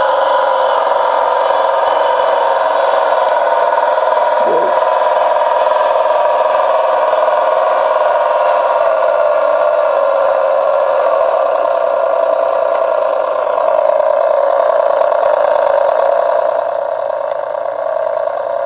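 Diesel truck engine sound from an RC truck's Kenworth sound unit, played back through a tiny metal-cone speaker: running steadily, thin and tinny with almost no bass.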